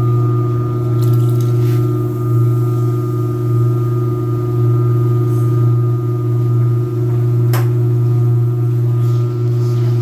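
Speed Queen TC5 top-load washing machine in its spin cycle: a steady low hum from the spinning basket and drive, with one sharp click about seven and a half seconds in.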